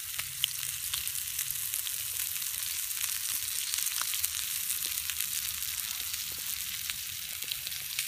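Bacon frying in a small pan over campfire coals: a steady sizzling hiss with scattered small pops.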